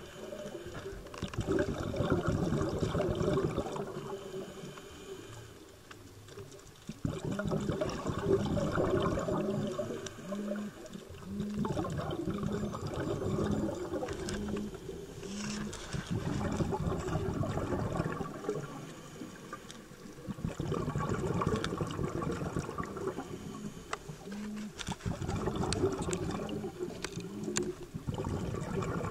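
Scuba diver's regulator breathing underwater: gurgling rushes of exhaled bubbles lasting several seconds, with quieter pauses between breaths.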